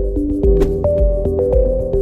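Background music with a steady beat: regular bass pulses under held melodic notes.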